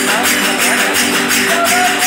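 Verdiales folk music from a panda: a violin plays a sliding melody over strummed guitars, with tambourine jingles beating a fast, steady rhythm.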